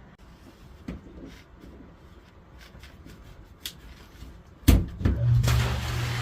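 A few light knocks and clicks, then a loud thud near the end, after which a sump pump motor starts up with a steady hum and a rush of water.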